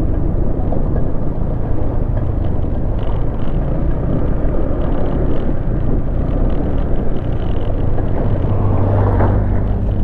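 Honda ADV scooter ridden along a rough, muddy dirt road, its engine running steadily under way in a dense, steady rumble of road noise.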